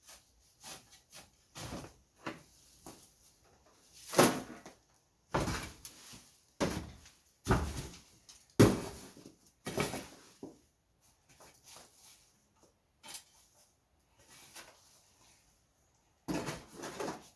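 A shovel scraping over a floor and scooping up debris: a string of irregular scrapes and knocks, each under a second, the loudest from about four to nine seconds in.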